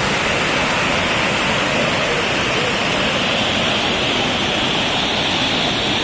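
Waterfall cascading over wide rock ledges into rapids: a steady rush of white water.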